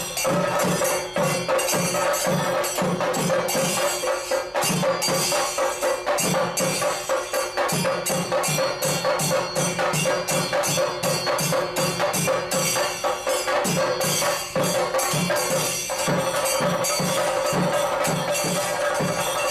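Percussion music: rhythmic drum strokes with fast, regular cymbal strikes over a steady held drone.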